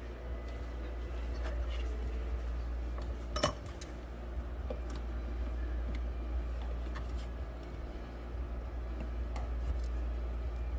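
Scattered light metallic clinks and taps of shifter parts and tools being handled, with one sharper click about three and a half seconds in, over a steady low hum.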